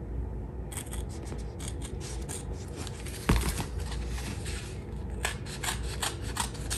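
Scissors snipping through self-adhesive leather repair tape and its paper backing, in a run of short cuts, with one louder thump about three seconds in.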